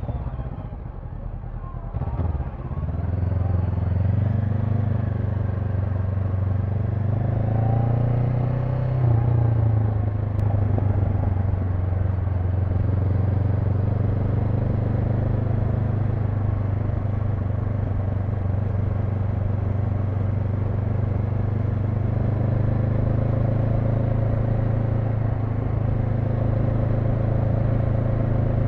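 Honda NX500's parallel-twin engine under way: off the throttle briefly at first, then pulling again, revving up and dropping in pitch at a shift about nine seconds in, then cruising at a steady note.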